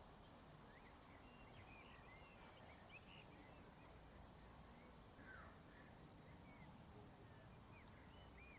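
Faint outdoor countryside ambience: scattered short, high bird chirps, in small clusters, over a low steady hiss and rumble.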